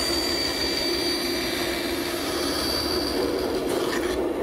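Bandsaw running steadily while it cuts a row of closely spaced kerfs into the end of a hardwood board, sawing the feathers of a featherboard. A thin high whine over the motor hum fades out about three seconds in.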